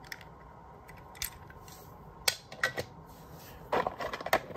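A toy car being handled: scattered sharp clicks and clacks, with a quick run of clattering near the end.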